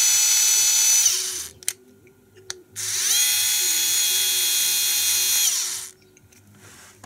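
INGCO CSDL10403 4-volt cordless screwdriver running with no load: a steady, high motor whine that winds down about a second in. After a couple of small clicks it spins up again at about three seconds, runs steadily and winds down just before six seconds.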